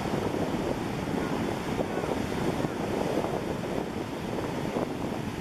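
Steady wind rushing over the microphone of a camera carried aloft on a parasail, a rough even noise without a break.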